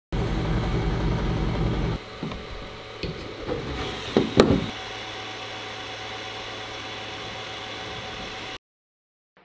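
A desktop 3D printer running while it prints a TPU part: a steady whirr of its motors and fan with faint tones in it, louder for the first two seconds. It is broken by a few knocks about halfway through, and the sound cuts off near the end.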